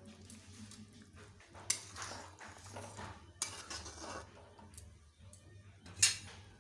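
A metal spatula scraping and clanking against a metal wok while stirring a thick masala curry. There are three sharp knocks with scraping between them, and the loudest knock comes near the end.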